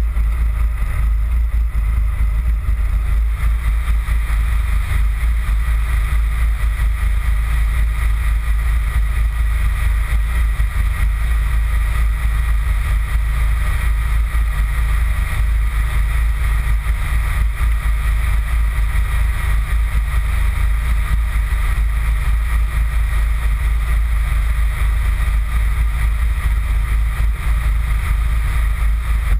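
Wind buffeting an exposed camera microphone: a steady, loud low rumble that flickers but never stops.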